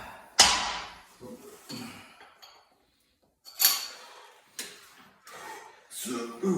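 A set of leg extensions being worked: four short, sharp bursts of noise, the loudest about half a second in and three more in the second half, each dying away within about half a second.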